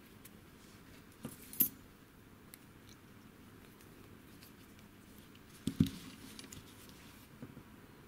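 Light metallic clicks and clinks from a brass padlock and steel lock picks being handled: two about a second and a half in, a louder cluster near six seconds, and a faint one near the end.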